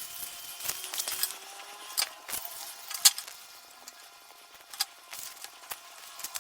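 Scattered small clicks and taps of sponge filter media and plastic parts being handled and fitted into a canister filter's media tray, the sharpest about three seconds in.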